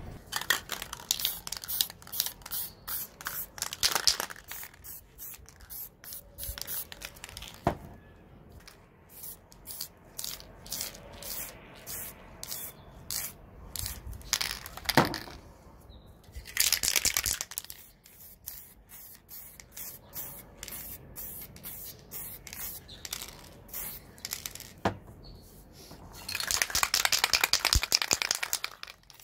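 Aerosol spray paint cans hissing in many short, quick bursts, with a few longer sprays, the longest near the end. A few sharp knocks come in between, the loudest about halfway through.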